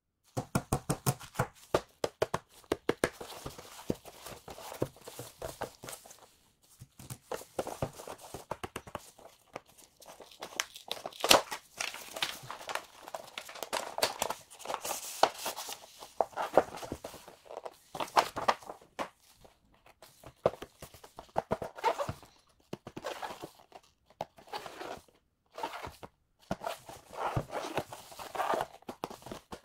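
Packaging being handled and opened by hand: rapid clicks, taps and rustling of cardboard and plastic, sped up to double speed.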